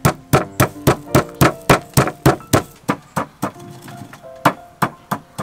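Pestle pounding peppercorns in a stone mortar: sharp, regular knocks about three to four a second, easing briefly a little past the middle and then resuming. Background music with held notes runs underneath.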